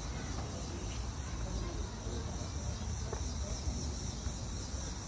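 Outdoor summer ambience: insects buzzing steadily in a high, even band, with wind rumbling on the phone's microphone underneath.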